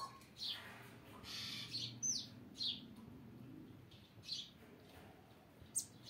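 Short high-pitched chirps, about one a second at irregular intervals, with one quick downward-sliding whistle about two seconds in.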